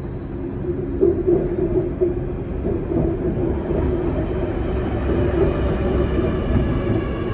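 Sydney Metro driverless train, an Alstom Metropolis, running past close by: a steady rumble of wheels on the rails. About halfway through, a faint multi-pitched whine joins in as the cars go by.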